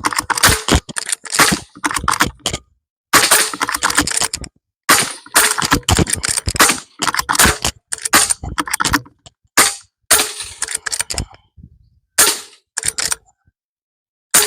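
PCP air rifles firing: repeated sharp cracks in about ten rapid bursts, each roughly a second long, with short pauses between them.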